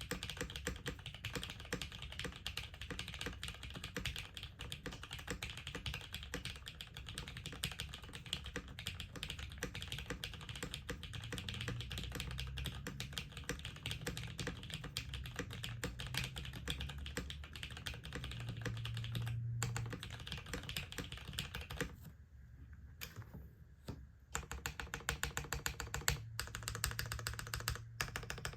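Continuous fast typing on an LZ REs TKL keyboard with lubed, filmed vintage Cherry MX Brown switches on a polycarbonate plate and GMK keycaps, a rapid stream of keystrokes. The typing briefly thins and goes quieter about two-thirds of the way through, then picks up again.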